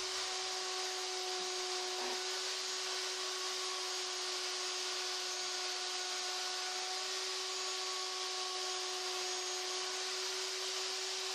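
Spindle of a large CNC router running steadily with an even high whine and hiss as its bit V-carves a sign into 1.5-inch precision board.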